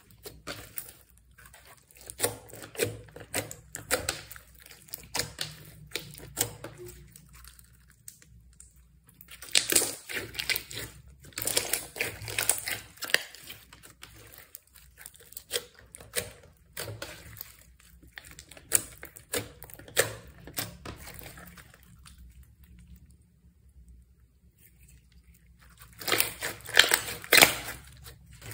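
Slime being squished, pressed and stretched by hand, giving spells of sticky crackling and clicking with quieter pauses in between.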